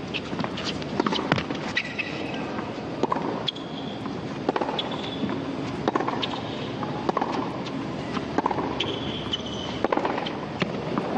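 Tennis rally on a hard court: the ball struck back and forth about once a second with sharp racket pops, and shoes squeaking on the court between shots, over a steady background noise.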